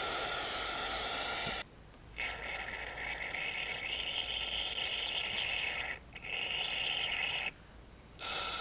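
Aerosol can of carburetor cleaner spraying into a lawnmower carburetor in long hissing bursts. One burst stops about one and a half seconds in, a long one runs for nearly four seconds, a shorter one follows, and another starts near the end.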